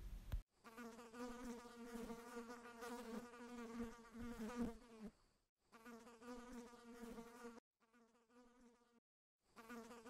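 Faint buzzing of a flying insect, a wavering steady drone that comes in several stretches with short breaks between them.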